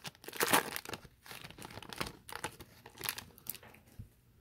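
Foil wrapper of an Upper Deck hockey card pack crinkling and tearing as it is ripped open by hand, in irregular crackly bursts that die away near the end as the cards come out.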